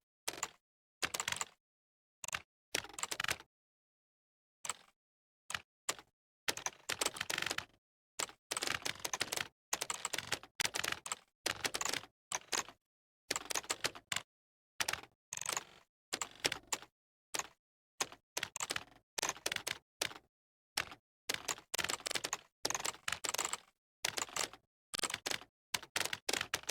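Typing on a computer keyboard: bursts of rapid keystroke clicks, each run lasting up to a couple of seconds, separated by short pauses of complete silence, with a longer pause about four seconds in.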